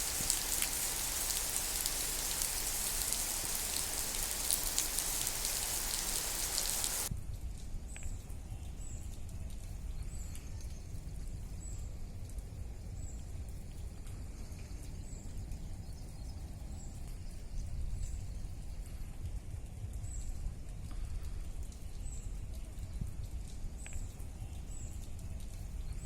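Steady heavy rain hiss that cuts off abruptly about seven seconds in, giving way to a quieter low rumble with faint, high chirps repeating about once a second.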